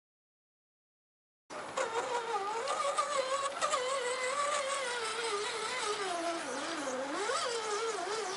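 A mosquito whining close to the microphone, its pitch wavering up and down as it flies about. It starts about a second and a half in.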